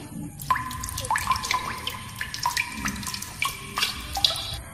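A stream of liquid splashing and trickling, with many small drips and bubbling blips. It starts suddenly about half a second in and stops suddenly near the end.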